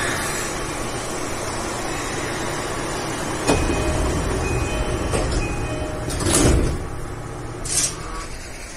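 Electric commuter train running through a tunnel, heard from the driver's cab: a steady rumble and rail noise. A sharp knock comes about three and a half seconds in, with faint short beeps repeating for a couple of seconds after it. A louder rushing burst follows about six seconds in, and a shorter one near the end.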